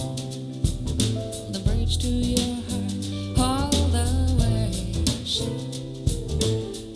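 Soul-jazz song with bass, drums, guitar and a singing voice, played back through in-ear monitors for a sound demo.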